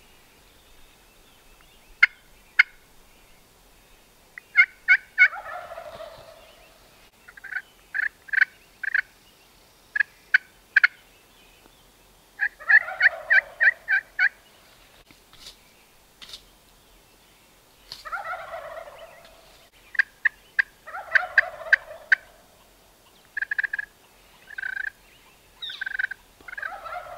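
Wild turkey gobblers gobbling repeatedly, about five rattling gobbles, with runs of short sharp calling notes between them.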